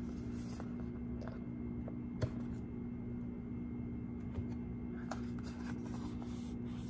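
A few light taps and scrapes of a cardboard tarot card box being handled and opened, over a steady low hum. The sharpest tap comes about two seconds in.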